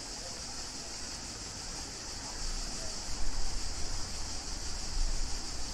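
Outdoor tennis-court ambience between points: a steady hiss with a low rumble that grows louder and more uneven about halfway through. There are no ball strikes.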